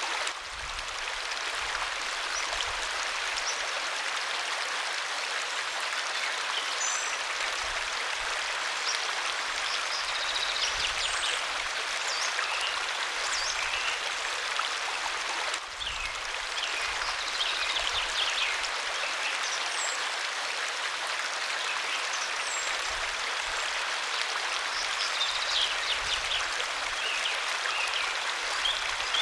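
Waterfall rushing in a steady, even splash, with a few faint high chirps here and there.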